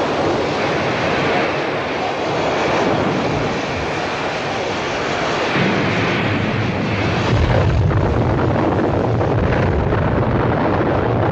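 Water rushing and steam hissing in a flooding ship's engine room, a dense continuous noise; about halfway through a deep rumble comes in and the whole grows louder.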